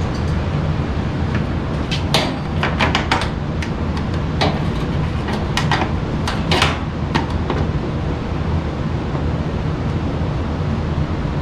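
Scattered clicks and light knocks of tools and sheet-metal furnace parts being handled, bunched between about two and seven and a half seconds in, over a steady low hum.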